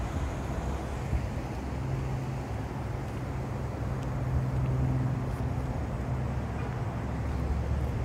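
Steady low drone and rumble of outdoor urban background noise, with a low hum that swells a little in the middle.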